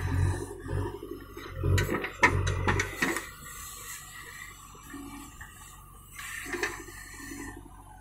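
JCB 3DX backhoe loader working: soil tips from the backhoe bucket onto a spoil heap, with heavy low rumbling and several knocks of falling clods in the first three seconds. It turns quieter after that as the bucket goes back down into the trench.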